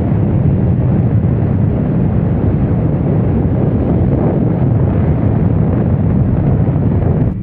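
Wind rushing over the microphone of a camera riding on a moving scooter at road speed, a steady low rumble with the scooter's engine and tyre noise underneath.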